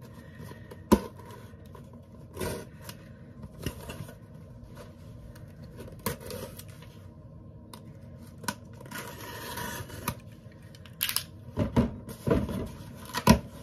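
Cardboard shipping box being opened by hand: irregular cutting, tearing and scraping of tape and cardboard flaps, with sharp clicks and knocks scattered through, the loudest about a second in and several near the end.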